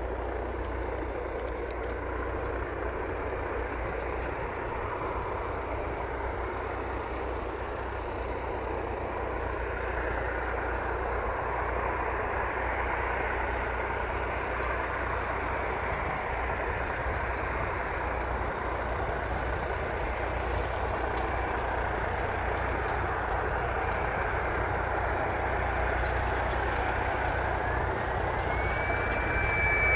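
Boeing 737-300 jet engines running steadily at low power as the airliner taxis. Near the end a whine rises in pitch and then holds as the engines spool up for takeoff.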